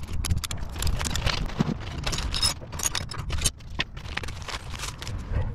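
Hard plastic Givi S250 tool box case being handled and worked with the fingers: a quick, irregular run of clicks, taps and scrapes.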